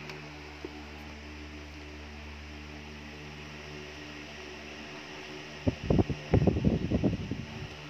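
Steady low electrical hum, like a motor or fan, with some hiss. Near the end comes a flurry of irregular knocks and thumps lasting about two seconds.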